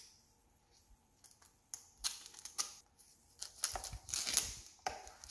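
Scissors snipping and crinkling plastic packaging as a bottle of floor cleaner is cut open: a single click at the start, then irregular snips and rustling from about two seconds in, loudest near the end.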